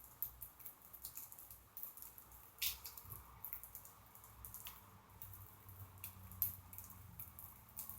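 Pet birds cracking and husking millet seed with their beaks: a quick, irregular run of small sharp clicks and crunches, several a second, with a few louder snaps.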